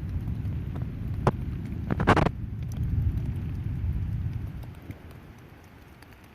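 Thunder rolling in a deep low rumble, with a sharp crackle about two seconds in, dying away after about four and a half seconds.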